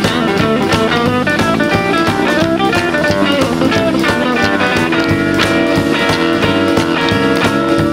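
Live rockabilly band playing an instrumental break: guitars picking a run of quick notes over a steady drum beat, with no singing.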